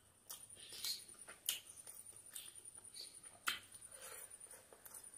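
Close-miked eating sounds of rice and chicken curry eaten by hand: wet chewing and lip smacks in an irregular string of sharp clicks, loudest about a second and a half in and again about three and a half seconds in.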